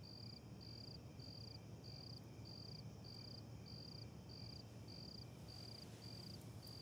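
A cricket chirping, faint and evenly paced at just under two chirps a second, over a low steady hum.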